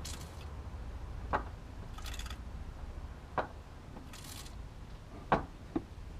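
Faint sharp clicks alternating with short hissing spurts, roughly every two seconds, from bleeding the clutch hydraulics.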